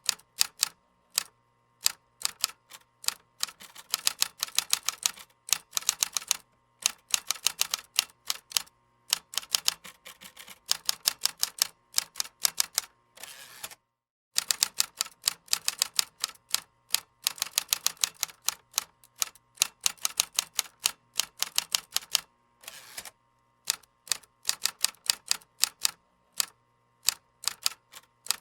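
Typing on a computer keyboard: rapid runs of sharp key clicks broken by short pauses, with a moment of total silence about halfway through.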